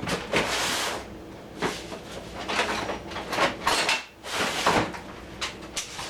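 A series of about six short scraping and clattering strokes, roughly a second apart, from kitchen utensils being handled.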